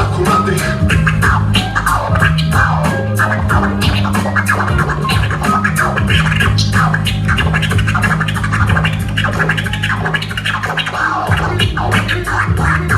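Electronic dance music with a steady, repeating bass line, with turntable scratching, the record dragged back and forth in quick short strokes, over it.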